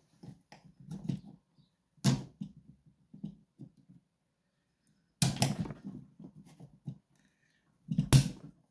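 Tool scraping, clicking and knocking against a padlock as its lower cover is pried off, with louder hard knocks about two seconds in, a longer scraping clatter a little after five seconds, and a sharp knock near the end.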